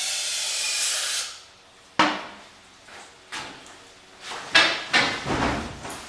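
An aerosol can of starting fluid spraying in a steady hiss that stops after about a second, dosing the carburettor of a non-starting AMC 258 engine; then several sharp metallic knocks and clunks.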